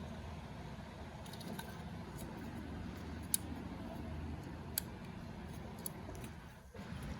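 Small sharp clicks and ticks of screws and a screwdriver being handled while a 2.5-inch SSD is screwed into a laptop's drive bracket, two of them clearer about three and five seconds in, over a steady low hum.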